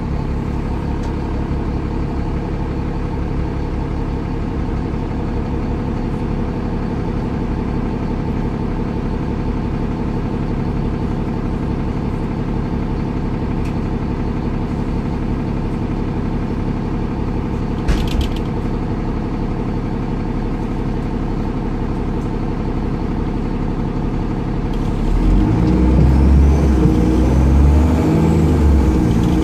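Dennis Trident 2/Enviro400 bus's retrofitted Cummins ISCe diesel idling steadily while the bus stands, heard from inside the passenger saloon, with a single sharp click about two-thirds in. Near the end the engine gets louder and its pitch shifts as the bus pulls away.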